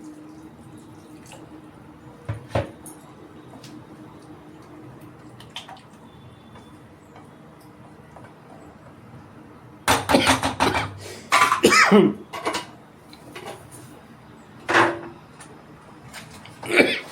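Kitchen utensils clattering against a cooking pan: a knock early on, then a loud burst of clattering and scraping about ten seconds in, and two more sharp knocks near the end, over a low steady hum.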